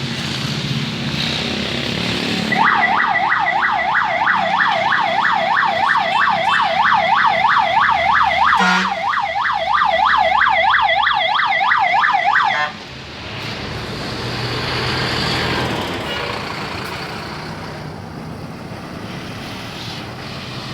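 A bus siren sounds a fast yelp, its pitch sweeping up and down about four times a second for about ten seconds, then cuts off suddenly. Vehicle and traffic noise runs underneath and carries on after it.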